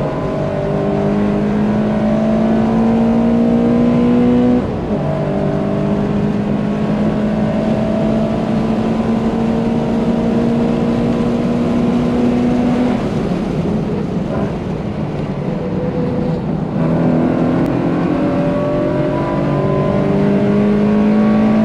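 Modified Subaru BRZ's naturally aspirated flat-four, with a catless exhaust and header, at full throttle heard from inside the cabin. It climbs through the revs, shifts up once about four and a half seconds in, pulls again to near 7,000 rpm, eases off for a braking zone around thirteen seconds, and comes back on throttle near the end.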